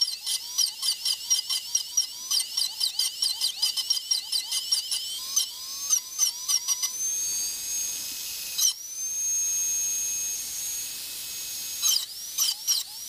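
High-speed straight-shaft dental drill (about 400,000 RPM) with a #8 carbide round bur stippling stainless steel: a high whine that dips in pitch each time the bur taps the metal, about four times a second. From about seven seconds in it runs free with a steady whine, cut off briefly, and the tapping starts again near the end.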